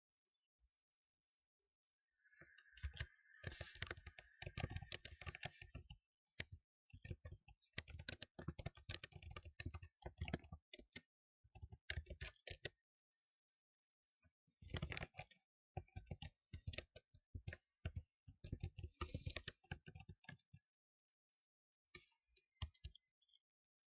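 Typing on a computer keyboard in runs of rapid key clicks with short pauses between them, thinning to a few scattered clicks near the end.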